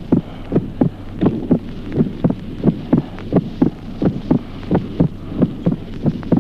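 Heart sounds heard on auscultation, beating regularly, with the second heart sound splitting into two separate components only during inspiration. A steady low hum runs underneath.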